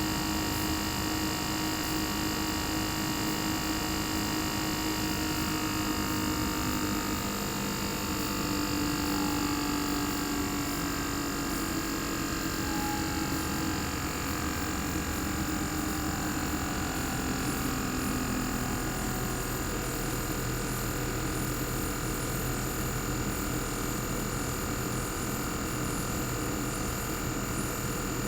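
Bare single-rotary inverter compressor of a Panasonic CU-227CF air conditioner outdoor unit running steadily, a hum with a thin high whine over it; a few of its tones drift slightly lower partway through.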